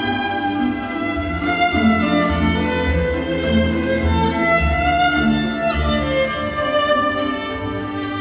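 Bowed string music: a violin melody of long held notes over sustained lower strings.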